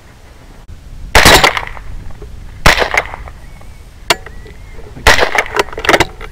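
Loud sharp cracks and clatter from a 6mm Creedmoor rifle being fired and worked: one shot about a second in, another near three seconds, then a quick cluster of bangs and clatters near the end as the rifle fails to cycle.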